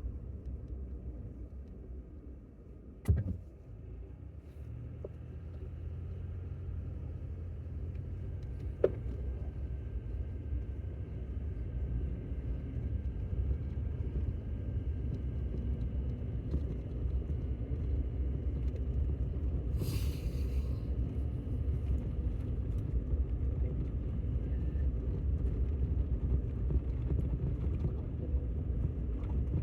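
Car driving: a steady low engine and road rumble that slowly grows louder, with a thump about three seconds in and a sharp click near nine seconds.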